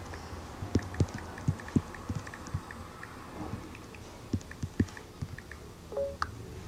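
Scattered light taps and soft thumps, a few a second at irregular intervals, over a steady low hum, with a short rising tone about six seconds in.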